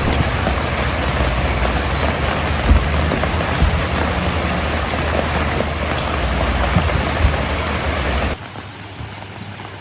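Steady rain close to the microphone, with a low rumble under it, cutting off suddenly about eight seconds in.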